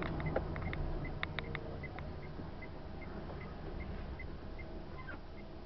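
Turn-signal indicator ticking evenly, about two and a half ticks a second, over the low rumble of a car's engine and tyres heard from inside the cabin. A few sharper rattling clicks come in the first second and a half.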